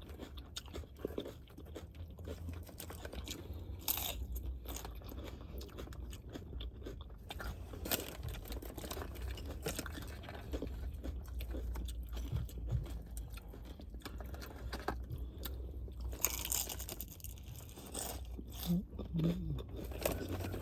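Chewing and crunching of a Subway Doritos Footlong Nachos sub, the Doritos chips inside crunching irregularly with each bite, a few crunches louder than the rest.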